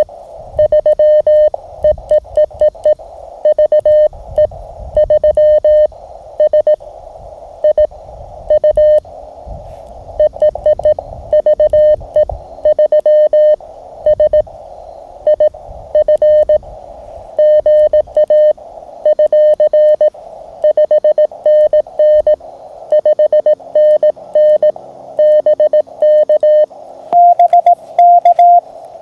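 Morse code (CW) from a Mountain Topper (MTR) QRP radio: a single audio tone keyed on and off in dots and dashes, over the steady hiss of the receiver's narrow CW filter. About 27 seconds in, a slightly higher-pitched CW signal takes over.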